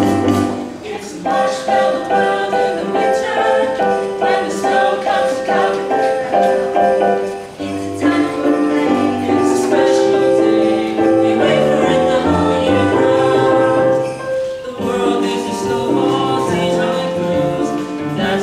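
Music: an ensemble playing sustained chords under a moving melody, with brief dips about a second in, near the middle, and again about three-quarters of the way through.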